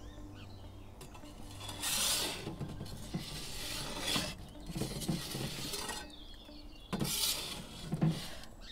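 Perforated metal pizza peel scraping across the stone floor and metal mouth of a wood-fired pizza oven as it slides under a pizza, in several scrapes with light metallic clinks. The loudest scrape comes about two seconds in, and short ones follow near the end.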